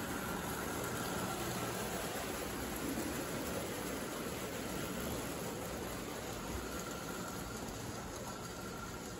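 Several O gauge toy trains running at once on three-rail tinplate track: a steady noise of metal wheels rolling over the rails and small electric locomotive motors running.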